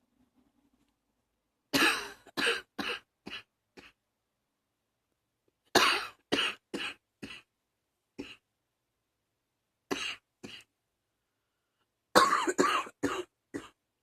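A person coughing in fits: a run of about five coughs, then a second run of about five, a single cough, two more, and a last run of several near the end, each run growing weaker. A lingering cough that the uploader puts down to allergies.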